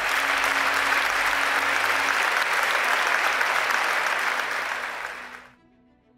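Audience applauding: dense, steady clapping that dies away about five and a half seconds in, leaving faint background music.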